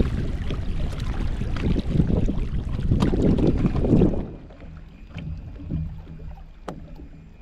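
Boat sounds on the water: a loud rushing, buffeting noise for about four seconds, then a drop to a quieter steady low hum with a few sharp knocks.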